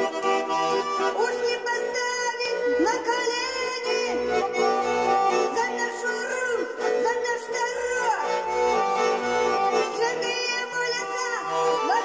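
A Russian garmon (button accordion) playing steady held chords and melody, with a woman's voice singing along over it.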